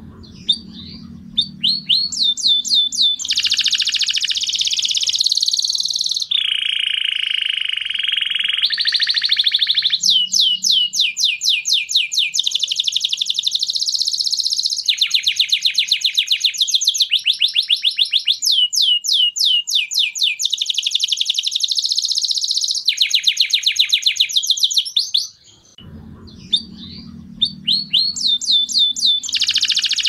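Male domestic canary singing a long song of rapid trills, strings of quick repeated notes that change pitch from run to run, with a lower, buzzier roll about six to nine seconds in. This is the male's courtship song, used to bring females into breeding condition.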